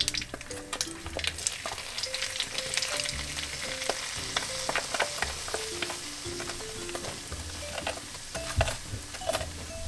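Curry powder sizzling in hot ghee in a pan, stirred with a utensil that clicks and scrapes against the pan many times.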